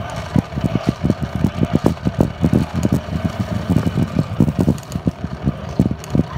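Plastic Big Wheel tricycle rolling along, its hard plastic wheels rumbling with many irregular knocks a second.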